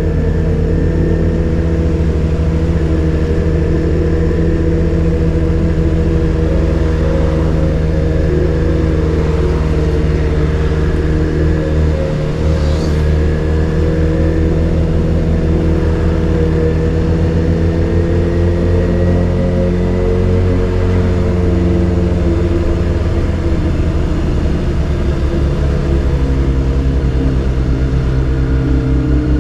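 Yamaha XJ6's 600 cc inline-four motorcycle engine running through a Dominator GP full exhaust system with a dB killer fitted, riding at fairly steady revs that rise and fall gently.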